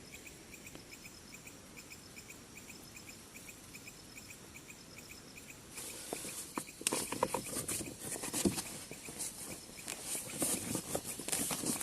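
Night insects, likely crickets, chirping in a steady, even rhythm. From about six seconds in, close rustling with clicks and knocks, as of gear being handled, comes in over the chirping and is louder.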